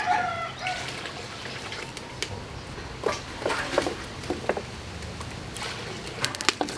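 Chickens clucking in the background, with short scattered calls. Near the end, water is poured from a plastic bowl into a metal cooking pot with a few splashes.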